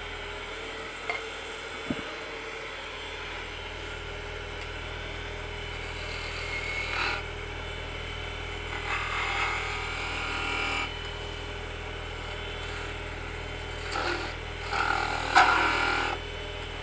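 Oneway wood lathe running with a steady hum while a gouge cuts the spinning green wood in three short bouts, about six, nine to eleven, and fourteen to sixteen seconds in.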